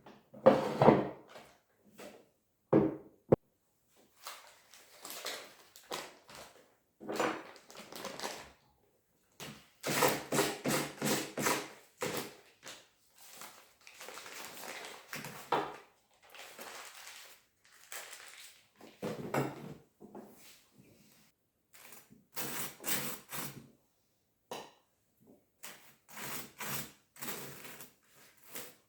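Household chores: a run of separate knocks, clatters and handling noises of objects being moved about a small room, with a sharp click a few seconds in.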